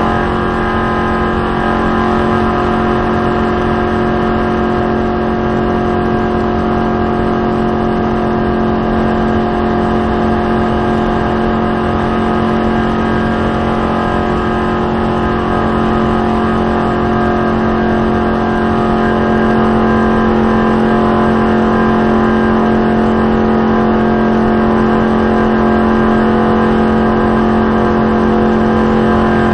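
Stock car's V8 engine running at racing speed, heard from inside the cockpit: a loud, steady drone that holds one pitch throughout.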